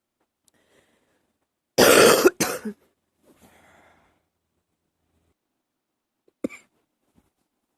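A person coughing. A loud, harsh cough about two seconds in is followed at once by a shorter second cough and a faint breath, then one short cough near the end.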